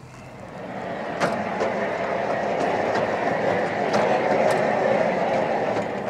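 A Norwood LumberMax HD38 sawmill's saw head carriage being pushed by hand along its steel bed track. Its wheels make a steady rolling rumble on the rails, with a few light clicks, building over the first second and dying away near the end as it stops.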